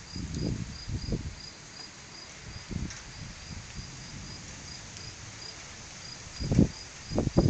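A cricket chirping steadily, about three chirps a second. Low bursts of wind rumble on the microphone come near the start and again about six and a half seconds in.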